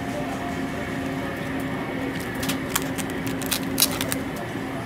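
Supermarket ambience with the steady hum of a refrigerated meat display case. A few sharp clicks and crinkles of plastic-wrapped meat trays being handled come in the second half.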